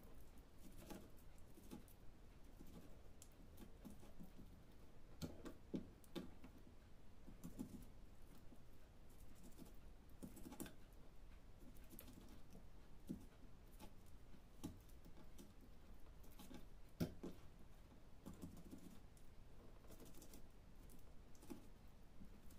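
Faint, irregular taps and scrapes of a kitchen knife on a wooden cutting board while raw chicken drumsticks are trimmed, with one sharper knock about three-quarters through.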